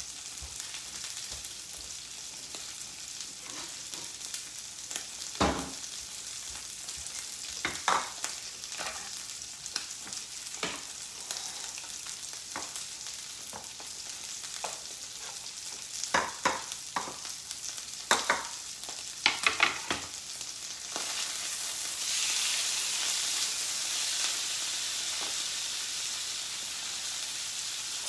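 Thin beef steaks sizzling in a frying pan, a steady hiss that grows louder for the last several seconds. Scattered sharp knife clicks and taps on a cutting board come over it as cooked steak is trimmed and cut into thin strips.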